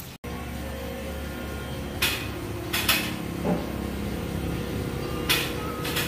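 A few sharp metallic clanks, about four and unevenly spaced, over a steady machine hum in a vehicle service bay.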